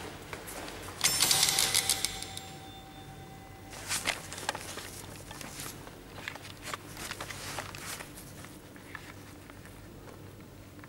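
A loud metallic jangle about a second in, lasting about a second and a half and leaving a ringing tone that fades over the next second. Then a run of small clicks and knocks at an apartment door's lock and handle.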